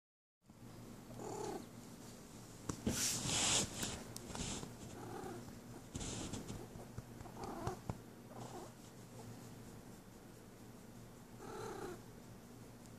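Female cat in heat purring steadily while being stroked, giving about five short calls spread through. A loud rustling comes about three to four seconds in.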